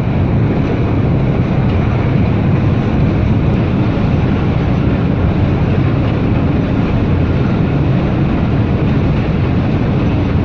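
A container ship's side thruster running, a loud, steady, even rumble as it pushes the ship round to turn it.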